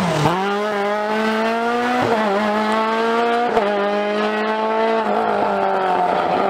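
Renault Clio rally car's engine at full throttle, the pitch climbing through the gears with quick upshifts about two seconds in and about three and a half seconds in, then staying at high revs as it pulls away.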